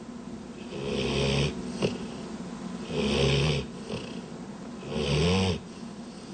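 Sleeping dog snoring: three long snores about two seconds apart, each a low pitched drone with breathy hiss.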